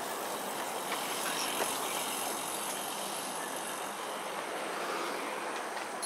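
Steady outdoor background hiss, with a couple of faint clicks in the first two seconds.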